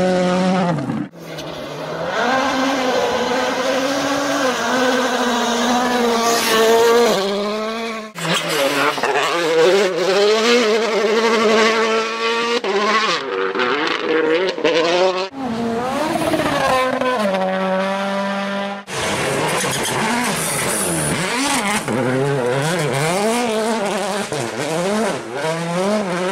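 Several rally cars passing at full attack in quick succession, their turbocharged rally engines revving hard with pitch climbing and dropping sharply through fast gear changes and throttle lifts. The sound cuts abruptly from one car to the next several times.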